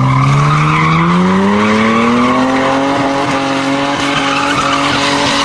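V6 car engine revving up over about three seconds, then holding high revs as the driven tyres spin and squeal while the car slides through a donut.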